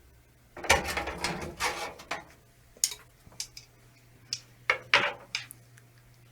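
Irregular clicks, taps and knocks of hard plastic and metal being handled, a case fan and a mid-tower PC case being moved about, with a few clusters of clicks about a second in and near five seconds.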